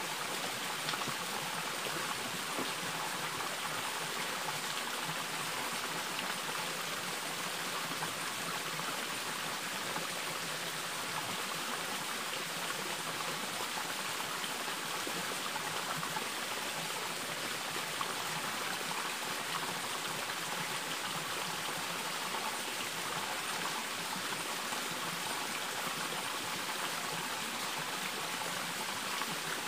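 Steady rush of running water, an even unbroken wash with no distinct splashes.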